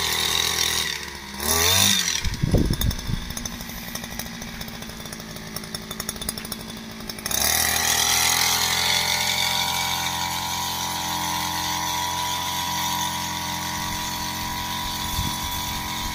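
Small petrol engine of a crop power sprayer running steadily while the spray lance is in use. Its sound wavers and slides in pitch about two seconds in, then steps up louder at about seven seconds and holds steady.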